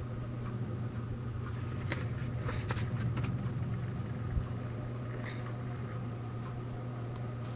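A steady low hum, like a fan or appliance running, with a few soft clicks and light handling noises.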